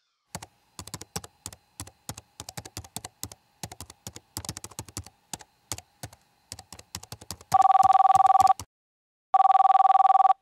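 Irregular clicks of typing on a computer keyboard, then a landline desk telephone rings: two electronic two-tone warbling rings of about a second each, with a third cut short near the end.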